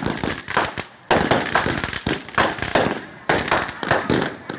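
Consumer firework cakes firing: a rapid run of bangs, about two to three a second, each fading out before the next.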